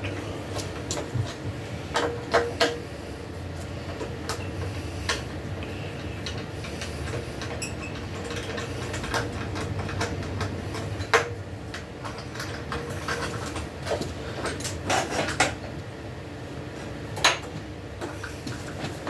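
Scattered metallic clinks and knocks of hand tools, bolts and parts being handled while a motorcycle is taken apart, over a steady low hum.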